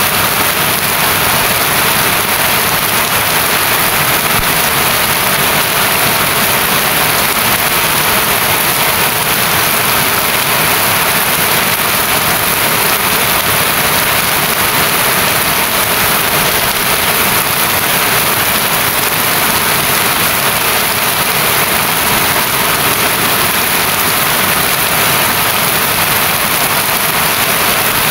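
Heavy rain falling steadily: a loud, even hiss with no let-up.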